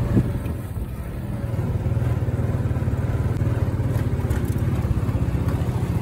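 Small motorcycle engine running steadily while riding, with a fast, even pulsing in its low drone.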